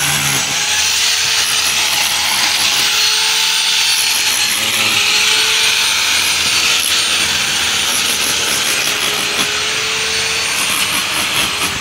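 Steady machine noise, a continuous high hiss with a faint wavering hum, unbroken throughout.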